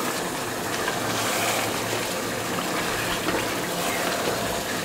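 Raw chicken pieces sizzling in hot spice paste in a pot, a steady hiss, with a wooden spatula stirring them near the end.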